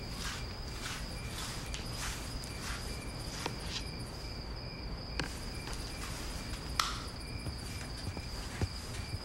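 Crickets chirping in a steady high trill, with a few soft knocks and clicks such as careful footsteps; the sharpest knock comes about seven seconds in.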